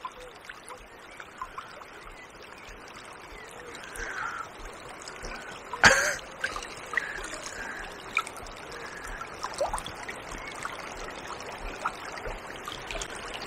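Fast river water rippling and trickling steadily around a wading angler, with one sharp knock about six seconds in.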